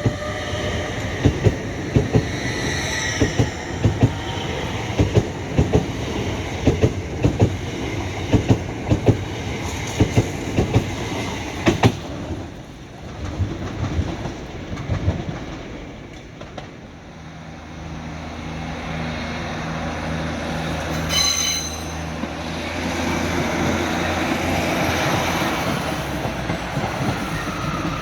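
A train passing over rail joints, with a steady rhythmic clatter of wheel clicks and wheel squeal near the start, dying away after about twelve seconds. A steady low drone from a train then takes over, with a short high tone about three quarters of the way in.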